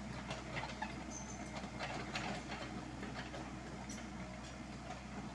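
Komatsu PC78US mini excavator's diesel engine running steadily as the machine travels on its crawler tracks, with irregular clicks and clanks from the track links.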